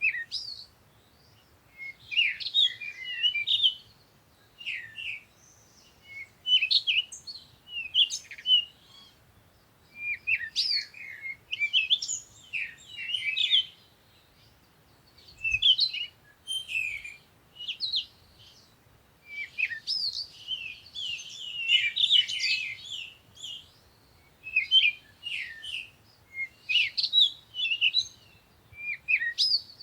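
Songbirds chirping and singing in quick high phrases, one or two seconds long, with short pauses between them. The calls overlap and grow busier in places.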